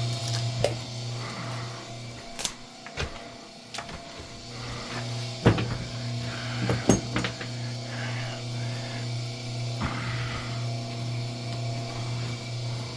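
Motor of a wire-stripping machine humming steadily. It stops for about two seconds near the start, then runs on. Several sharp clicks and knocks come from the wire and machine being handled.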